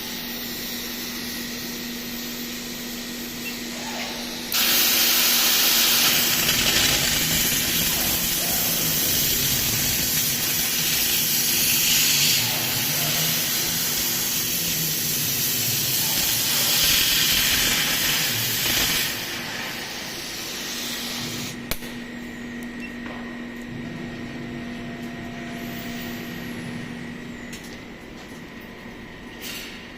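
CNC plasma cutter: the plasma torch arc comes on suddenly with a loud, even hiss, runs for about fifteen seconds while cutting sheet metal, then cuts off, over the steady hum of the machine. A sharp click follows a little later.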